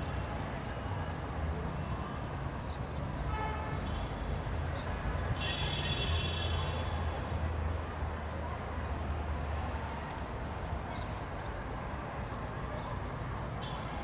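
Outdoor city ambience: a steady low rumble of distant traffic, with a brief high-pitched tone lasting about a second and a half, about six seconds in.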